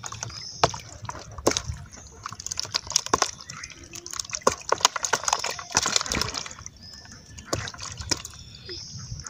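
Small live fish flapping and splashing in a shallow plastic tub of water as they are shaken out of a bamboo fish trap, giving irregular sharp wet slaps and sloshing.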